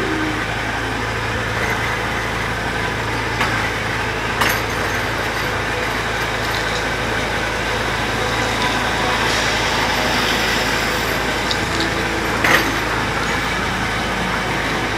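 Amusement-ride vehicle running along its guide track: a steady motor hum and rolling rumble, with a few short knocks, the loudest about twelve seconds in.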